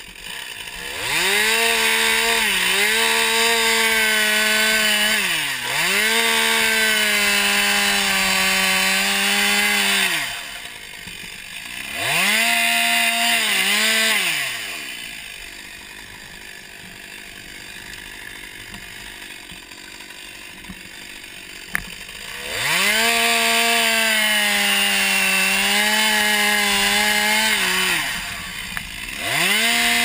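Stihl two-stroke chainsaw revving up and cutting into a thin tree trunk in five bursts of a few seconds each, dropping back toward idle between them, with a long idle stretch in the middle. The cuts form a V-shaped felling notch.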